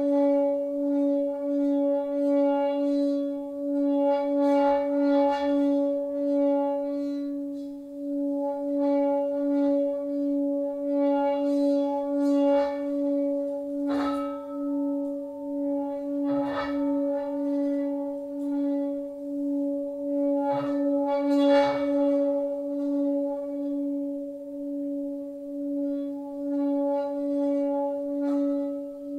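A sustained musical drone held on one low pitch, rich in overtones, with a regular wobble in the tone. Several brief soft taps or clicks sound over it, the clearest about halfway through and again about three quarters of the way in.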